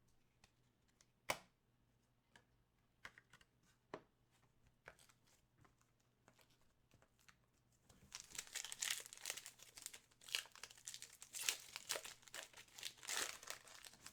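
A few scattered light taps and clicks of handling, then from about eight seconds in the plastic wrapping of sealed trading-card packs is torn open and crinkled.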